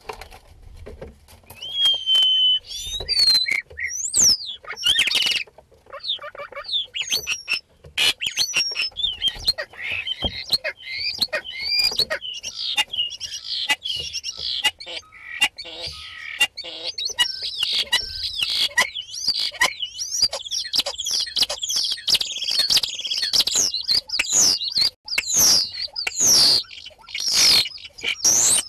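Common starling singing its long, varied mimicking song: a held whistle about a second in, then a running stream of gliding whistles, chatter and clicks.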